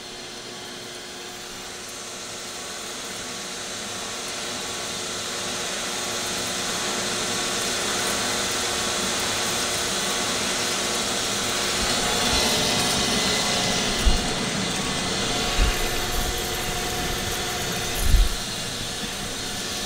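Hyd-Mech S20 horizontal metal-cutting bandsaw running with its blade moving and coolant spraying onto the table: a steady motor hum and hiss that grows gradually louder, with a few dull thumps in the last few seconds.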